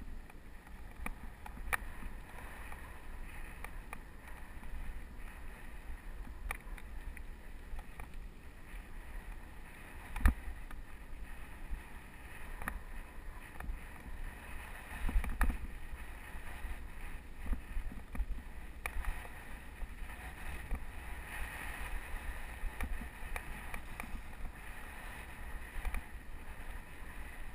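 Mountain bike rolling over a dirt trail, with wind buffeting the microphone and a running rattle of small clicks and knocks from the bike over bumps; one sharp knock about ten seconds in, and a rougher patch of rumble a few seconds later.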